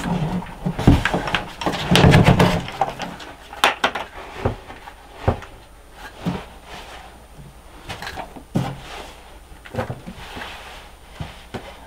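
Irregular knocks, thuds and clatter of things being handled on wooden storage shelves, with a loud cluster of clattering about two seconds in and scattered knocks after.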